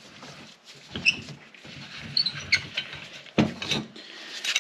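Steel C-clamp being unscrewed from a wooden block on a Dual Range Hydra-Matic front clutch pack, letting the compressed clutch springs back up: light metal clicks and short high squeaks, then a couple of louder knocks about three and a half seconds in.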